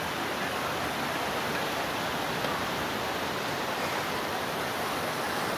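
River water rushing steadily over rocks in shallow rapids.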